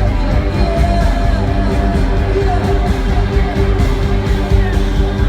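Live rock band playing loudly through the concert PA in a passage without lyrics, with held instrumental notes over a steady low end.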